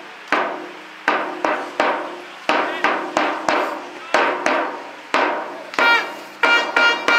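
A loose rhythm of sharp strikes, often in quick groups of two or three, each ringing out briefly. From about six seconds in, the strikes take on a clear ringing pitch.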